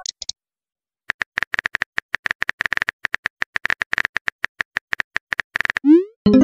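Rapid keyboard tap clicks of a texting-app typing sound effect, several per second, as a message is typed out. Near the end comes a short rising pop, and a chiming tone starts just as it ends.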